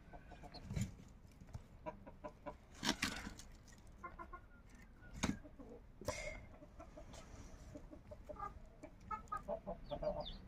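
Chickens clucking in short calls, mixed with the scraping of a knife cleaning a singed goat leg and a few sharp knocks, the loudest about three and five seconds in.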